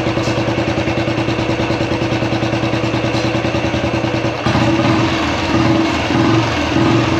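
Royal Enfield single-cylinder motorcycle engine idling with an even beat, then revved in a few short throttle blips from about four and a half seconds in.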